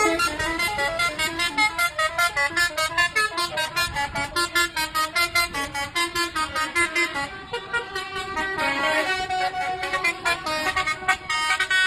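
Bus 'telolet' horns, a set of musical air horns, tootling quick melodic phrases of several notes a second. About seven and a half seconds in, the tune changes to longer held notes.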